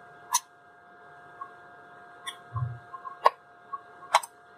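A plastic computer mouse shell being handled and closed back up after a cable repair: about six sharp plastic clicks and taps, with a soft low bump in the middle, over a steady faint electrical hum.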